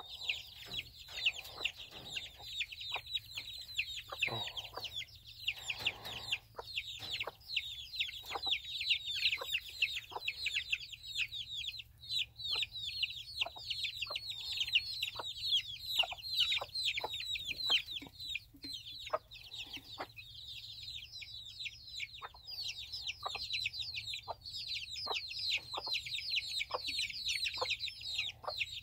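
A brood of young chicks peeping without pause, a dense stream of short, high, falling peeps, with brief low clucks from an adult chicken scattered among them.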